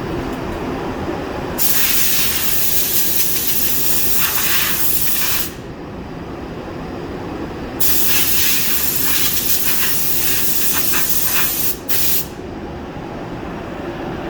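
Powder coating spray gun hissing with compressed air in two long bursts of several seconds each, the second with a brief break near its end, over a steady low hum of shop machinery.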